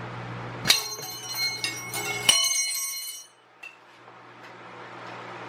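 Metal tire-changing tools clanking, a sharp strike about a second in and another near two seconds, each leaving a bright bell-like ringing that dies away by about three seconds.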